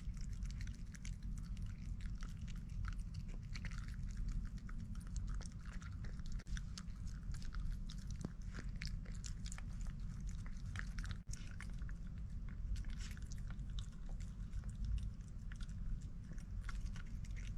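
A person chewing and eating, with many small wet mouth clicks and smacks, over a steady low hum.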